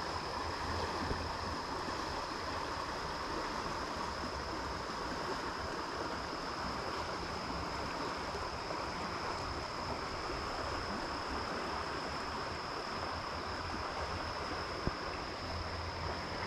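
River water flowing steadily over a shallow trout-stream run, a continuous even rush.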